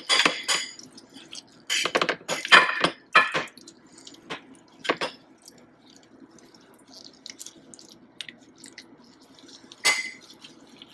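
Metal spoon clinking and scraping against a dish while filling is scooped out, in short sharp strokes, several close together about two seconds in, a few more around five seconds and one near the end. A faint steady hum runs underneath.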